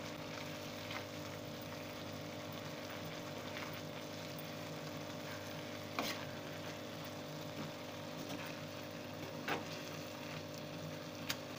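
Thick beetroot halwa simmering and sizzling in a clay pot while a spoon stirs it, with a few sharp clicks of the spoon against the pot. A steady hum runs underneath.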